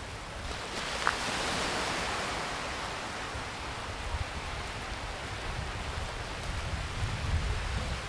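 Sea surf washing ashore: a hiss of breaking water that swells about half a second in and eases off, with wind rumbling on the microphone. A short, sharp high blip about a second in.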